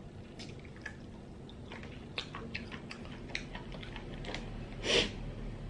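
Small scattered clicks of cooked snail shells knocking against each other and the glass dish as the snails are picked out with a pin and eaten, with soft chewing. One louder, short breathy noise about five seconds in.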